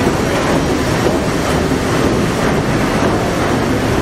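Loud, steady machinery noise in the engine room of a Liberty ship running at full speed under its triple-expansion steam engine, a dense rumbling clatter with no pauses.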